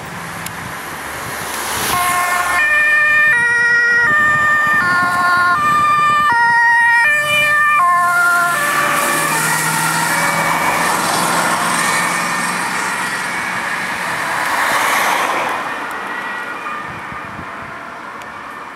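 Ambulance siren sounding on an urgent run, its tones stepping up and down between pitches for the first several seconds. After about eight seconds the siren fades under engine and tyre noise of passing traffic, which swells about fifteen seconds in and then dies away.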